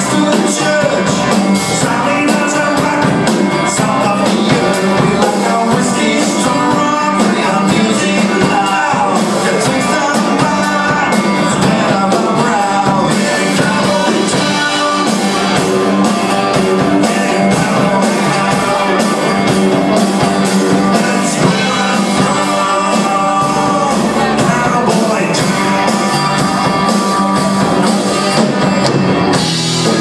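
Live country band playing: electric and acoustic guitars, bass guitar and drum kit with a steady beat, and a male lead singer.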